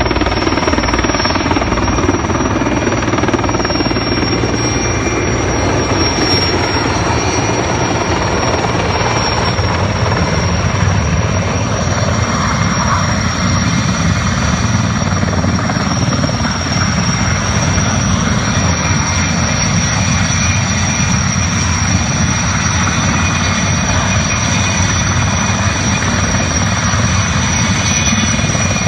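Erickson S-64 Air-Crane heavy-lift helicopter hovering low over water while it fills its tank through a hanging snorkel: loud, steady rotor and twin-turbine engine noise with a steady high turbine whine.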